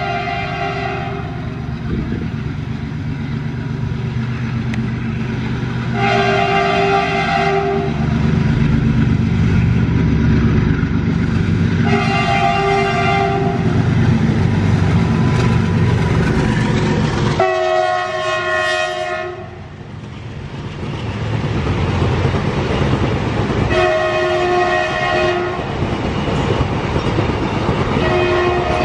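WDG4G diesel-electric locomotive sounding its horn in six blasts, about one every six seconds, over a continuous rumble as it approaches and passes at speed. After it passes, the double-stack container wagons roll by with a clickety-clack on the rails.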